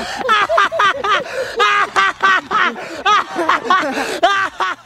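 A man laughing loudly, a fast run of high-pitched 'ha-ha-ha' laughs, several a second, without a break.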